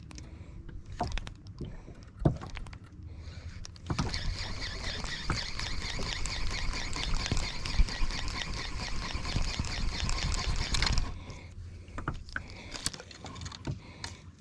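Shimano Vanford spinning reel working while jigging: a dense, fast ticking whir starts abruptly about four seconds in and cuts off about seven seconds later. Scattered handling knocks come before and after it.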